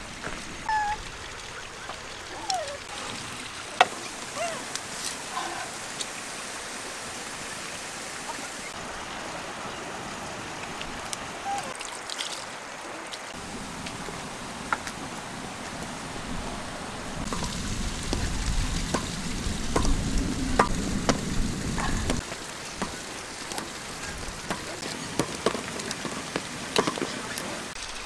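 Wood fire crackling under a steaming wok, with scattered pops and clicks over a steady hiss. A low rumble comes in about halfway through and stops again some seconds later.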